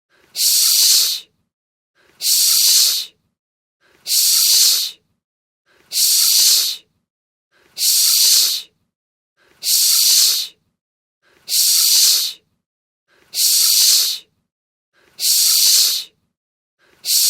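A stock hissing sound effect repeated in a loop: a sharp, high-pitched hiss lasting about a second, coming back about every two seconds with silence in between.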